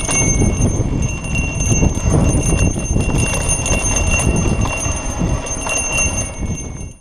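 Mountain bike rolling fast down a dirt singletrack, a dense rumble and rattle of tyres and frame over the bumpy trail, with a high metallic ringing throughout. The sound cuts off suddenly at the very end.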